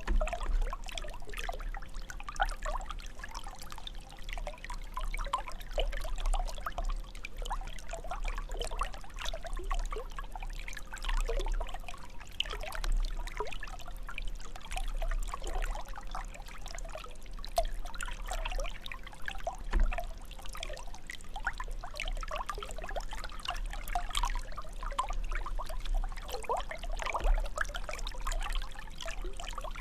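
Water jet of a fountain splashing steadily into its basin, a continuous irregular trickling and splattering.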